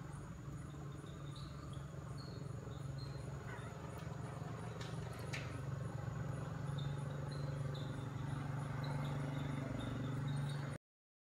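Forest insects buzzing and chirping: a steady high buzz with a fast, even pulse, repeated short high chirps, and a low steady hum underneath. There are two brief clicks about five seconds in, and the sound cuts out abruptly just before the end.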